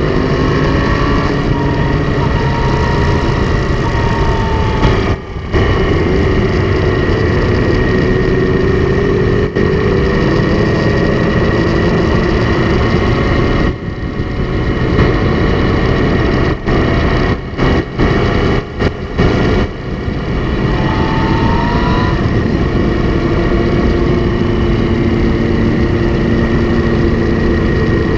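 Motorcycle engine running at road speed under heavy wind rush on a bike-mounted camera, its pitch rising and falling with the throttle. Several brief sharp dips in the sound come around the middle.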